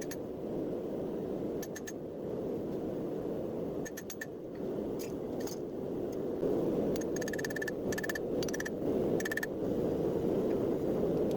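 A steady rushing noise from a blacksmith's forge, broken by several short trains of rapid clicking.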